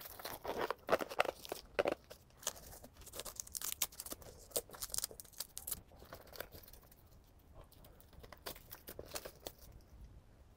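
Handling noise of a padded triangle battery bag being strapped onto an e-bike frame: irregular rustles, scrapes and strap pulls. It is busiest in the first two seconds and thins out toward the end.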